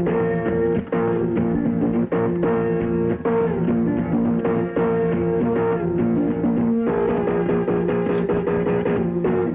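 Background music: a guitar-driven blues-rock instrumental stretch with steady sustained chords and no singing.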